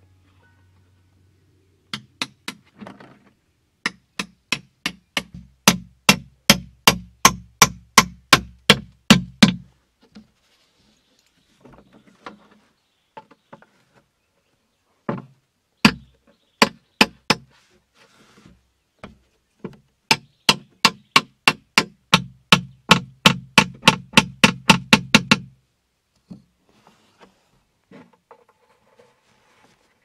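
Hammer blows driving nails and a wooden peg through the floor of a cut plastic jerrycan, in two long runs of quick, even strikes, about three to four a second, with a hollow ring from the container.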